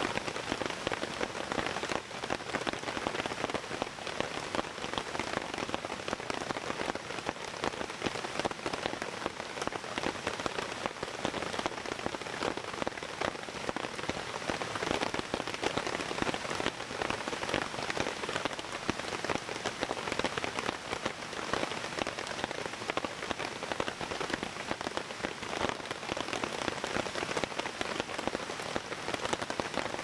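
Heavy rain falling steadily on the tent, a dense, even patter of drops.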